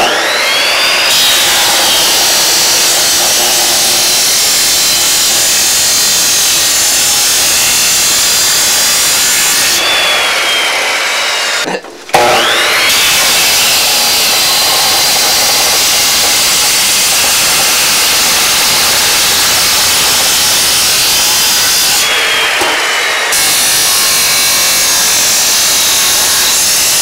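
Abrasive chop saw cutting through a steel exhaust pipe with a loud, steady grinding whine. The motor spins up at the start, cuts out briefly about twelve seconds in, then spins up again and cuts on.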